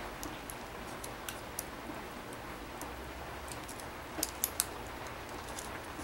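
Faint scattered small clicks and taps, a few close together about four seconds in, over a steady low hiss: a laptop ribbon cable being handled and seated in its connector on the motherboard.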